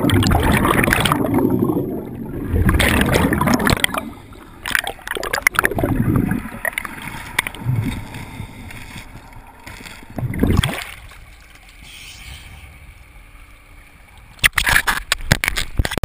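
Underwater, a diver's exhaled bubbles rush and gurgle past the microphone in bursts, loudest over the first four seconds and then fainter. About a second and a half before the end come sharp splashing clatters as the camera breaks the water's surface.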